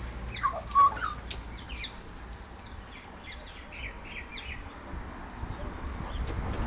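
Wild birds calling: a loud, short call about a second in, then a quick run of short, high chirps a couple of seconds later.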